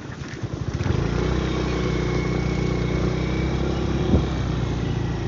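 A small engine catching about a second in and then running steadily. It starts from uneven low chugging and settles into an even idle, with a brief click near the end.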